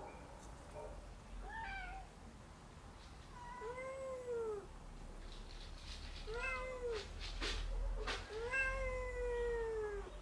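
Domestic cat meowing about four times, each call rising and then falling in pitch, the last one the longest. A few sharp clicks come around the middle.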